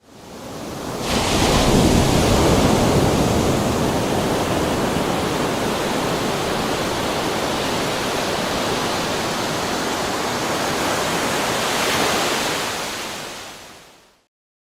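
Ocean waves breaking as surf: a steady rushing wash that fades in over about a second, swells once more near the end, then fades away.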